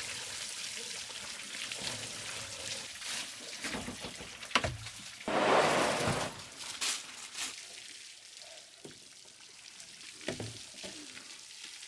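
Water pouring and trickling, with a louder gush about five seconds in and a few sharp knocks.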